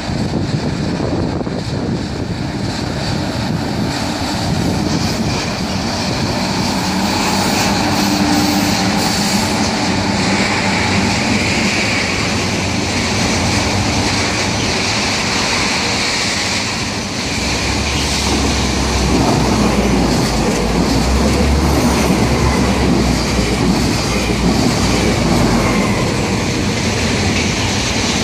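A freight train of tank wagons behind an electric locomotive rolling through the station: steady wheel-on-rail rolling noise with clickety-clack over the rail joints, the low rumble growing heavier about two-thirds of the way through as the wagons pass closest.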